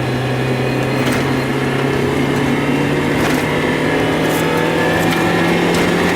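Mazda Miata's inline-four engine running, its drone rising slowly in pitch, with a few irregular sharp ticks; the car has a stumble and misfire.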